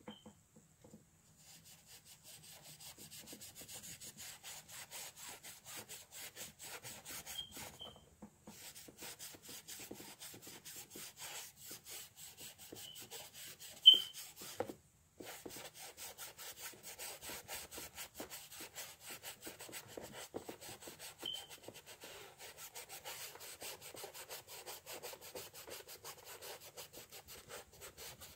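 Paintbrush scrubbing cobalt-blue acrylic paint onto a canvas in rapid back-and-forth strokes, a steady scratchy rubbing that pauses briefly twice. A single sharp knock about halfway through.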